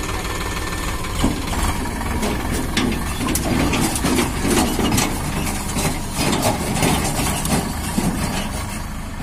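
Sonalika DI 47 RX tractor's three-cylinder diesel engine idling, then pulling away about a second in, with the tipping trolley rattling and clanking behind it over rough ground. The sound eases slightly near the end as the tractor moves off.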